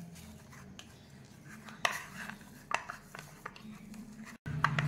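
Bare hand mashing boiled potatoes with spices and chopped herbs in a plastic bowl: soft squishing with a few light clicks and knocks against the bowl.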